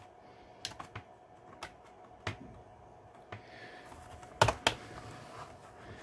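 Plastic bottom case of an Acer Aspire V3 574 laptop being prised off by hand: scattered sharp clicks as the snap-fit clips let go, with the two loudest close together about two-thirds of the way through.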